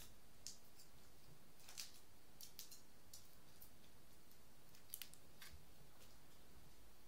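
Faint, irregular light clicks and ticks, about a dozen, the loudest about two seconds and five seconds in, over a quiet room hiss.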